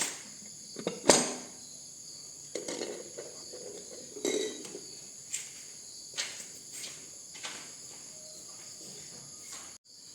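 Insects chirring steadily in high tones. Irregular knocks and scrapes sound over them, the sharpest and loudest about a second in.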